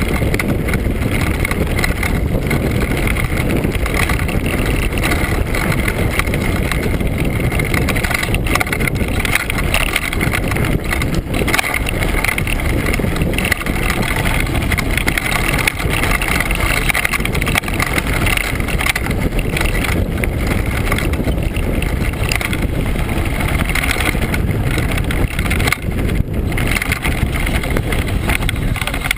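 Mountain bike descending a rocky downhill trail, heard through a bike-mounted GoPro: a loud, steady rush of wind and rattle from the bike jolting over stones.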